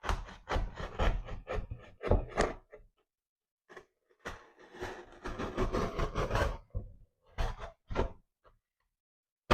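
Cardboard being cut and handled: a quick run of rasping strokes, a longer scraping stretch, then a few short knocks near the end.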